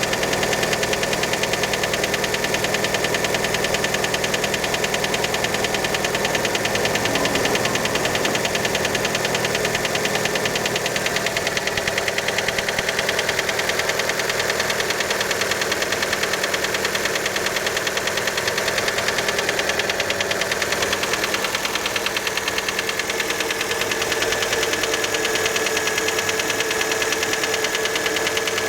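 Fiat Panda engine idling cold with a fast, steady knock keeping time with the engine, which many take for piston slap from a worn piston skirt.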